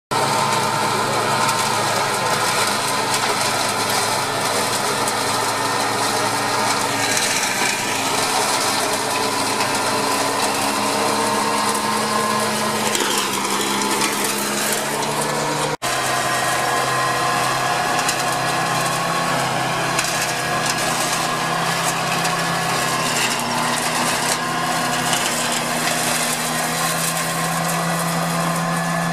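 Softrack tracked tool carrier's engine running steadily under load while its front flail mower-collector cuts grass and bracken and blows the cuttings up the chute, a dense steady machine noise over a steady engine hum. The engine pitch dips and recovers a little before halfway, and the sound drops out for a moment just after halfway.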